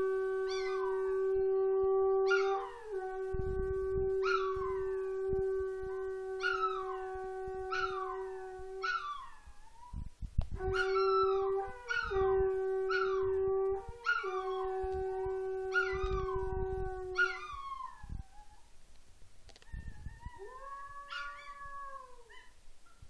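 Conch shell trumpet blown in two long steady notes, the second starting about ten seconds in, while a Chihuahua–miniature pinscher mix howls along in short falling-pitch cries about once a second. After the horn stops, the dog gives one more drawn-out howl, rising then falling, near the end.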